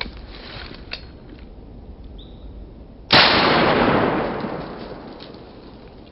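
A single shot from a 12-gauge Ithaca shotgun about three seconds in, fired at a squirrel in the treetops. It comes on sharply, and its echo rolls off over about two seconds.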